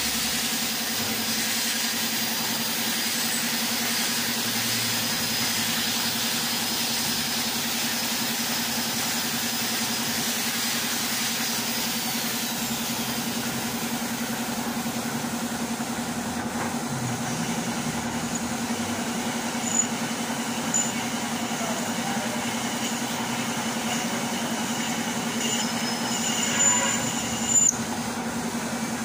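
Metal lathe turning a screw conveyor shaft: a steady motor hum and the even noise of the cut. A few brief high-pitched squeals come about twenty seconds in and again near the end.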